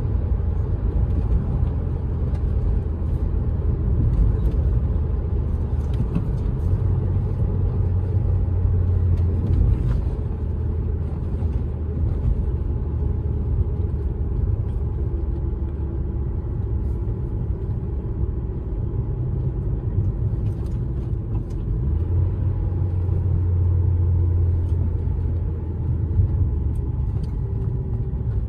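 Ford Focus SVT's 2.0-litre four-cylinder engine and road noise heard from inside the cabin while driving: a steady low drone that swells twice, about a third of the way in and again late on, as the car pulls and then cruises.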